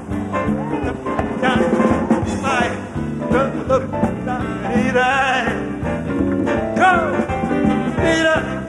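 Live calypso band playing an upbeat instrumental break, with keyboards over a steady beat.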